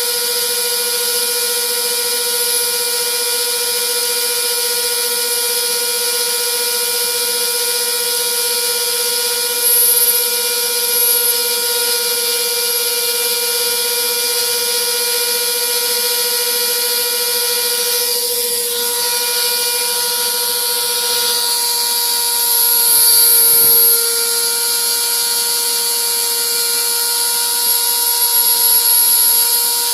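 Router spindle of a homemade CNC carving machine running with a steady high whine while the bit cuts wood, briefly getting louder a few times as it bites harder.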